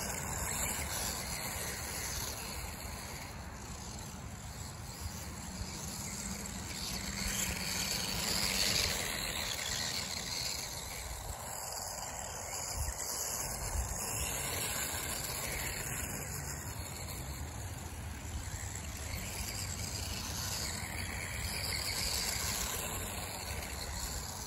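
High-pitched whine of a brushless electric motor in a Feiyue FY01 RC short course truck, converted to rear-wheel drive, rising and falling as the throttle is worked while it runs across grass.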